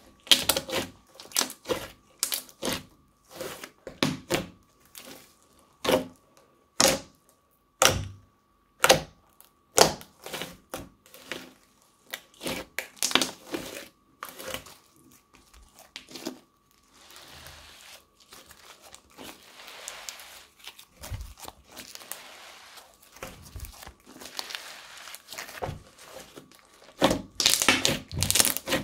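Crunchy slime squeezed, poked and stretched by hand: a run of sharp pops and crackles, a softer crinkling stretch in the middle, and a dense burst of pops near the end.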